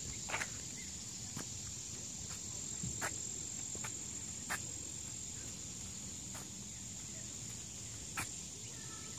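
A steady, high-pitched chorus of insects, broken by a few scattered sharp clicks.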